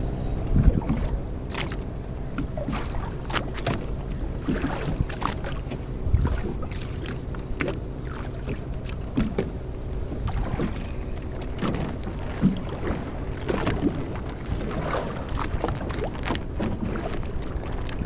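Motorboat engine running steadily close by, with water slapping and splashing against the hull.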